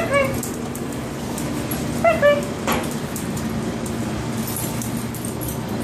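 Pit bull puppy whimpering: a few short, high, falling yips right at the start and another run about two seconds in, over the steady hum of a box fan.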